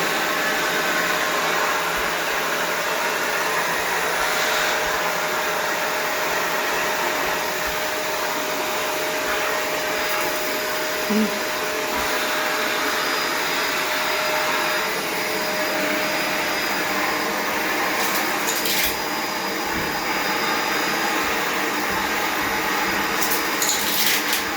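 A vacuum cleaner running steadily, its motor hum under a continuous rush of air, with a few brief clicks in the last several seconds.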